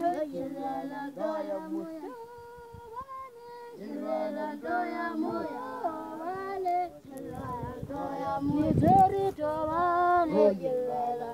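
A group of voices, children's among them, singing a repeated chant unaccompanied. About two seconds in, a single voice holds one note for over a second. There is a brief low rumble about nine seconds in.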